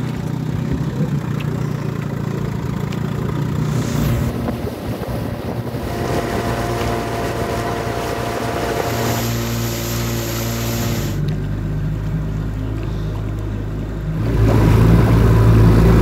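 Vintage outboard motor running steadily, heard from aboard the small boat it drives. The engine note changes abruptly a few times and grows louder near the end.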